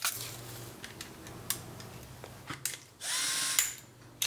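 Sharp mechanical clicks, a few spread apart, and a short whir about three seconds in that rises and then holds steady, from the gears and levers of an Olympus OM-2N 35mm film camera's mechanism.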